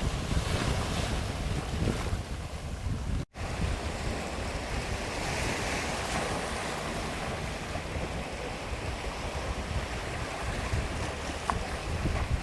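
Caspian Sea waves washing, with wind buffeting the microphone in a heavy low rumble. The sound cuts out completely for a moment about three seconds in.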